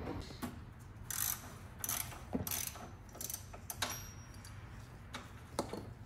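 Irregular clicks and light knocks of hand tools and fittings being worked on in a car's engine bay, about ten scattered over the few seconds, over a faint low hum.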